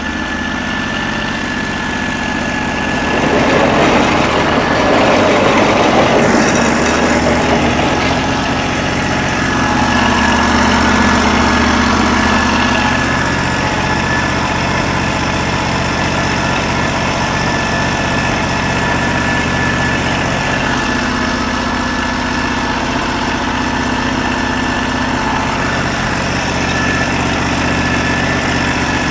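16 hp gas engine of a Norwood LM29 portable band sawmill running steadily. It swells louder with a rougher, noisier sound from about three to seven seconds in, and again from about ten to thirteen seconds in.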